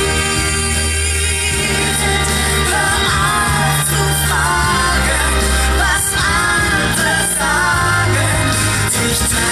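Pop song with a singing voice over a steady bass line, played loud over a sound system.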